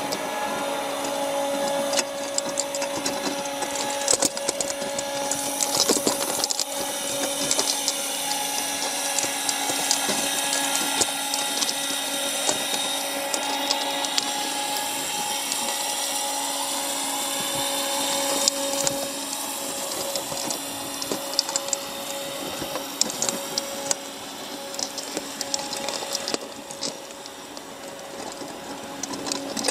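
A steady mechanical hum and whine heard underwater, its higher whine slowly rising and falling, with scattered short clicks and knocks throughout.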